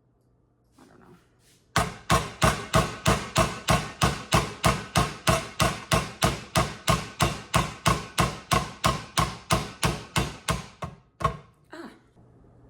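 Rubber mallet striking parts of a KitchenAid Pro 600 stand mixer's gearing to knock a part loose for removal: a long run of quick, even blows, about three a second, for roughly nine seconds, then two last taps.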